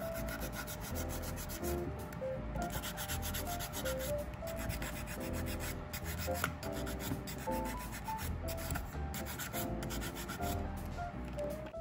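Medium-grit (100/180) nail file scraping back and forth across a practice hand's nails in quick repeated strokes, filing the nail surface before nail tips are glued on. Background music plays underneath.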